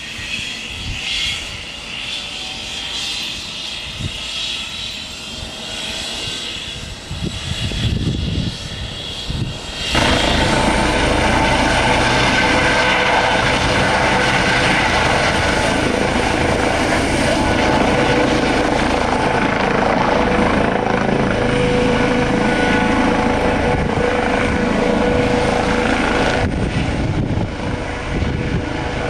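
Eurocopter EC135 T2+ (Airbus H135) twin-turbine helicopter running with its rotor turning on the pad, a high turbine whine over the rotor. About ten seconds in the sound jumps suddenly to a much louder, steady rotor and turbine noise with a constant hum as the helicopter lifts off and flies low.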